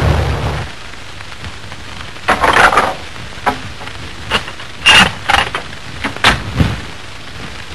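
The rumble of a heavy artillery gun's shot dies away in the first half second. Then come scattered sharp knocks and clanks as the crew works the gun, the loudest about two and a half and five seconds in, over the steady hiss of an old film soundtrack.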